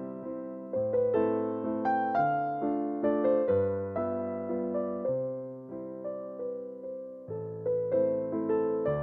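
Background music: a gentle electric piano melody with notes struck and left to fade.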